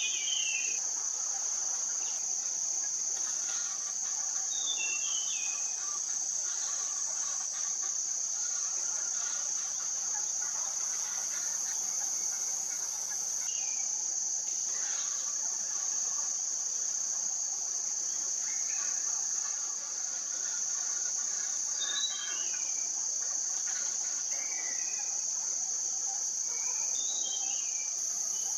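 A steady, high-pitched insect chorus, with brief clusters of small bird chirps every few seconds.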